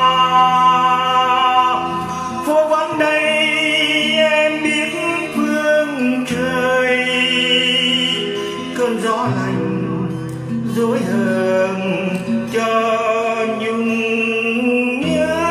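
A male voice singing a slow Vietnamese ballad in long drawn-out notes over acoustic guitar accompaniment.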